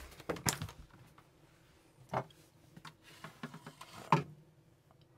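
A few sharp clicks and knocks as an RV fridge's freezer door is unlatched and swung open and a hand reaches inside.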